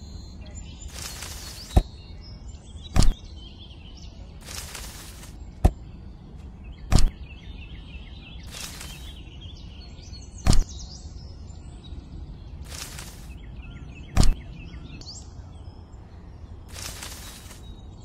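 Sharp little knocks, about six of them a few seconds apart, as cherries are dropped one at a time into a plastic toy train wagon. Faint birdsong runs underneath, and a short hiss sounds about every four seconds.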